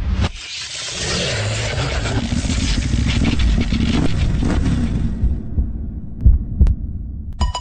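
Advertising sound design: a loud rumbling, hissing swell that fades out after about five seconds, then two heavy low thumps. A chiming melody starts right at the end.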